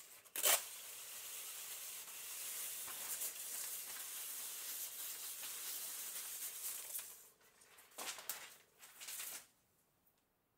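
ELKA 803-02 cash register's printer mechanism and paper tape: a sharp click, then a steady high rasp for about six seconds, followed by a few short rasps near the end.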